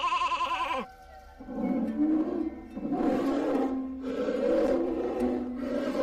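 A sheep's bleat with a trembling quaver, ending about a second in. After a short pause, a lower, rough growling vocalization from a bear follows and keeps on in uneven pulses.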